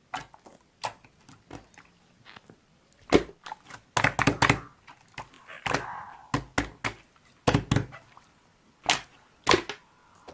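Slime being squished and poked by hand, making a series of sharp clicks and wet pops, with tight clusters about four seconds in and again near eight seconds.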